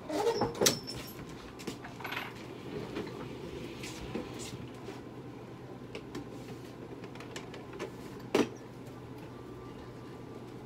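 Small clinic supplies being handled: scattered clicks and light clatter, with a cluster of louder knocks in the first second and one sharp knock about eight seconds in, over a steady low hum of equipment.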